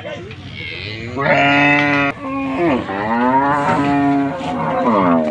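A large humped zebu bull bellowing: a long, loud moo from about a second in, a brief break, then a second long moo that falls in pitch as it ends.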